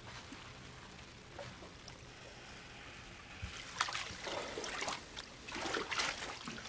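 Bath water sloshing in a foam-filled tub as someone moves in it, in two louder bursts starting about three and a half and five and a half seconds in.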